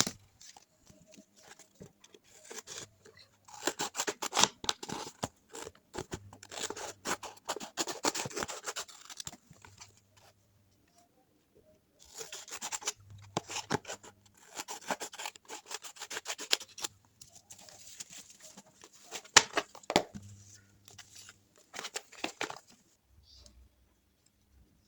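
Hands handling craft and packing materials: irregular rustling, scraping and sharp clicks in bursts, with short pauses between.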